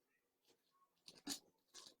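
Near silence, broken by a couple of faint, brief crackles: one about a second in and a shorter one near the end.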